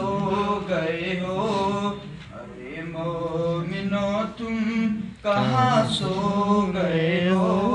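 A man's voice singing a naat unaccompanied, in long held and ornamented lines, with short breaks for breath about two seconds in and again about five seconds in.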